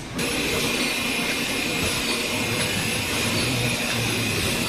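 Steady din of factory machinery running in a large hall: a continuous hiss with a faint high tone over a low hum. It comes in abruptly just after the start.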